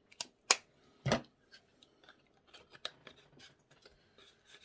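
A plastic compact eyeshadow palette being handled: a couple of sharp clicks as its lid is worked, the loudest about half a second in, and a duller knock about a second in. Then come light scrapes and taps of a small cardboard box being handled.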